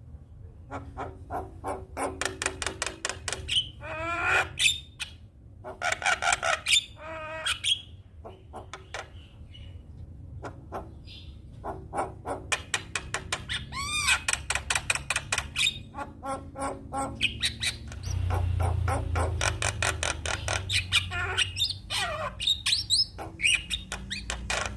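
Javan myna singing: fast runs of clicking, chattering notes mixed with rising and falling whistles, repeated in phrases, over a low hum that gets louder about three quarters of the way through.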